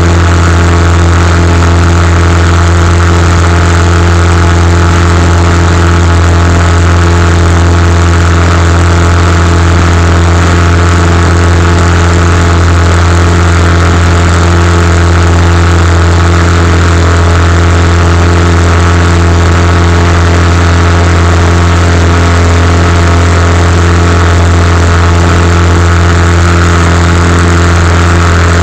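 Boat motor running at a constant speed, heard from on board: a loud, steady, unchanging low drone.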